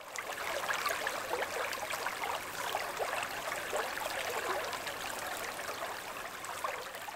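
A shallow creek running over stones, a steady babbling rush of water with small gurgles.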